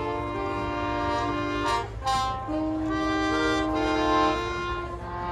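Marching band winds and brass holding sustained chords, with a change of chord about two seconds in.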